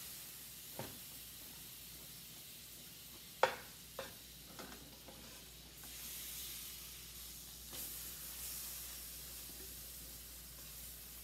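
Apple hand pies sizzling in butter in a skillet, the sizzle swelling for a few seconds past the middle. A few sharp clicks and scrapes of a metal spatula against the pan, the loudest about three and a half seconds in.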